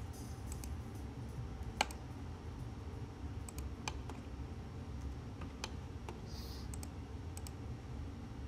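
A handful of scattered single clicks from a computer mouse and keyboard, over a low steady hum.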